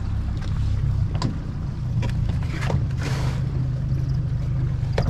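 An engine idling steadily, with scattered light knocks and clicks and a short rushing noise about three seconds in.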